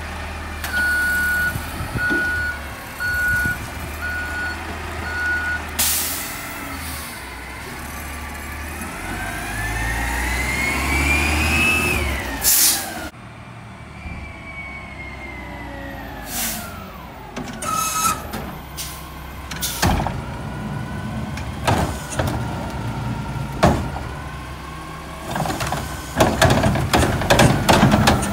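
Mack LEU garbage truck with a McNeilus Curotto-Can arm: a reversing beeper sounds about once a second for five seconds, then a hiss of air and the engine revving up as the truck pulls away, ending in a sharp air brake hiss. Later the truck stops with knocks and hisses, and near the end the Curotto-Can arm shakes a cart out into the can with a rattling clatter.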